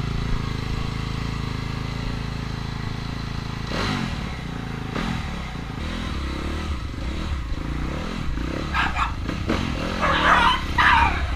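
2015 Yamaha YZ250FX's 250 cc four-stroke single-cylinder dirt bike engine idling, then revving unevenly as the bike moves off about four seconds in. Dogs bark repeatedly near the end.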